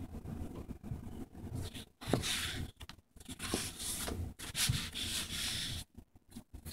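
Sheets of drawing paper being handled: several short rubbing, rustling strokes, each under a second, over a low handling rumble in the first couple of seconds.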